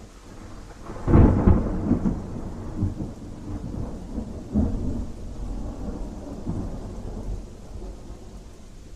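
A thunder peal: a sharp clap about a second in, then a rumble with several more cracks, slowly dying away over steady rain.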